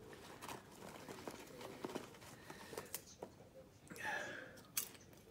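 Paper microwave-popcorn bag rustling and crinkling faintly as a hand rummages inside it for popped kernels, with a few small clicks scattered through.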